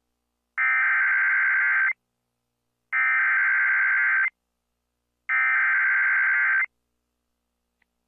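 Emergency Alert System SAME header: three identical bursts of rapid digital data tones, each a little over a second long, about a second apart. These bursts announce the start of a new alert.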